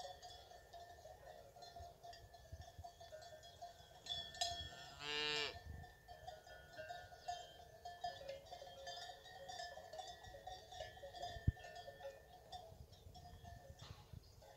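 A fighting-bull cow moos once, a pitched call of about a second, about five seconds in, over a faint steady background of ringing tones and small clicks.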